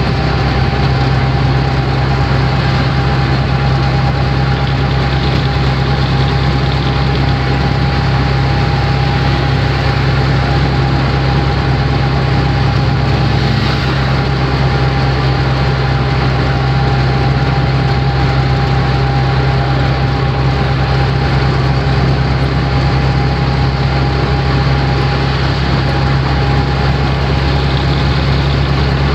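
Auto-rickshaw's small engine running steadily while the three-wheeler is driven along the road, heard from the driver's seat, with a thin steady whine over the engine note and road noise.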